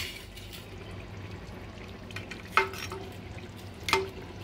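Part-cooked rice being spooned onto chicken in a biryani handi: a soft steady sizzle from the pot, with two short clinks of the spoon against the pot, about halfway through and near the end.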